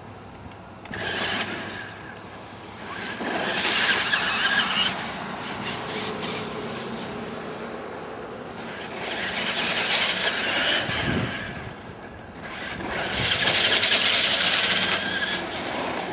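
Traxxas E-Maxx electric RC monster truck driven in about four fast bursts. Each burst brings a high whine from its twin electric motors that swells and fades as the truck speeds up and passes.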